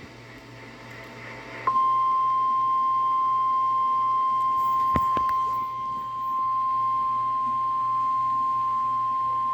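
NOAA Weather Radio warning alarm tone: a steady single-pitch beep at about 1050 Hz that starts abruptly about two seconds in and holds level. It signals that an urgent weather alert is about to be read. A brief click is heard about five seconds in.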